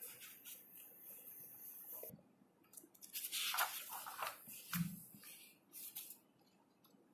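Faint rustling of a paper booklet page being handled and turned, loudest around the middle, with a soft bump near the end of the rustle.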